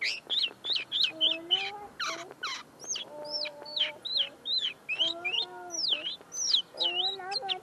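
Common linnet singing in a cage: a rapid twitter of quick, high, rising and falling notes. The song is not yet fully formed; the owner says the bird is still clearing its notes. A lower drawn-out call sounds about four times underneath.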